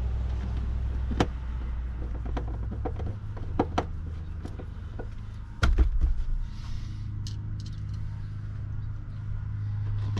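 Scattered clicks and knocks from a screwdriver and plastic trim parts being handled while a car speaker is fitted, with one louder thump a little past halfway, over a steady low hum.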